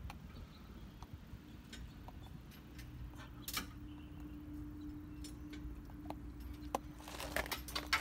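Quiet outdoor background: a low rumble and a faint steady hum that comes in about three seconds in, with scattered light clicks and crunches that grow thicker near the end.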